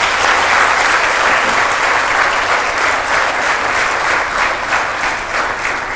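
Audience applauding, starting suddenly and easing slightly near the end.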